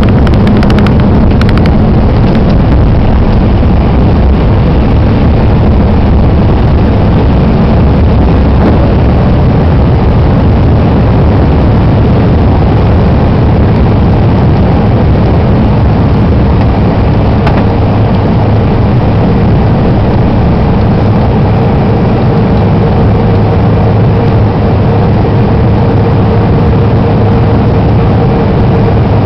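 Airliner jet engines at takeoff power, heard from inside the passenger cabin: a loud, steady roar with a low drone under it. A few light rattles come in the first couple of seconds, and about halfway through a steady higher whine joins in as the plane climbs.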